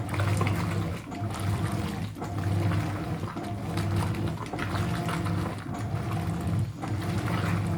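Hoover 800RL top-loading washing machine agitating a load in water. The motor hums and the water sloshes in quick strokes, with a brief dip about once a second and barely a pause between strokes.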